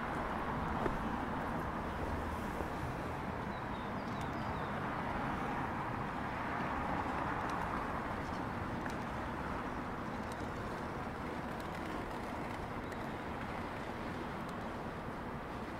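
Street traffic ambience: a steady hum of passing cars, swelling a little as a vehicle goes by about halfway through.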